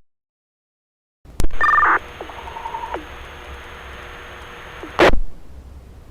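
Fire department two-way radio channel keying up with a click and a short two-tone beep, followed by a brief faint tone and an open-channel hiss with no voice. About five seconds in, a loud short burst of squelch noise closes the transmission.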